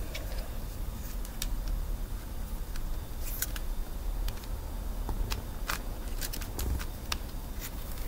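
Plastic Rubik's-style puzzle cube twisted by hand: irregular sharp clicks as its layers turn, over a low rumble.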